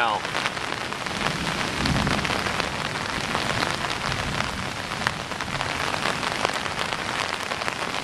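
Torrential rain pouring down steadily, with the close patter of countless drops striking.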